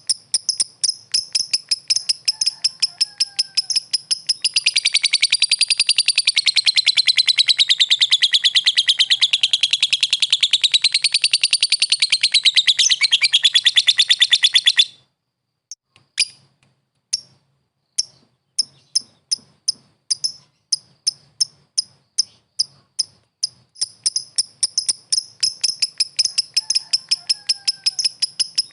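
Lovebird calling with rapid, shrill chirps run together in a fast continuous string, which breaks off about halfway through; it starts again with single, spaced chirps that quicken into a fast string again near the end. This is the lovebird's call to a rival bird.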